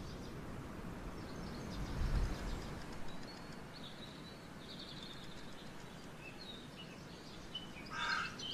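Small birds chirping in short, high twitters over a steady outdoor background hiss, with a soft low rumble about two seconds in and a brief louder burst near the end.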